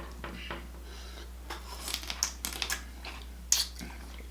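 Eating sounds from a Cajun seafood boil: scattered short sharp clicks and smacks as the food is handled and eaten in the sauce, with a louder click about three and a half seconds in.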